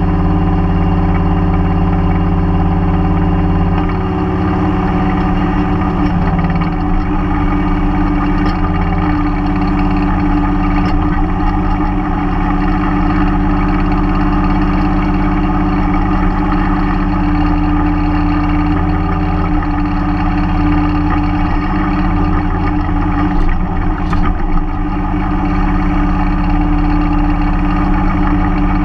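Mahindra 3016 compact tractor's diesel engine running steadily, its pitch shifting slightly about four seconds in, with a few faint knocks around two-thirds of the way through.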